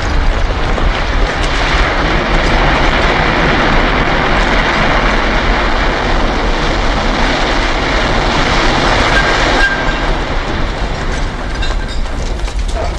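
Loud, continuous roar with a deep rumble, plausibly a World Trade Center tower collapsing, easing off about ten seconds in.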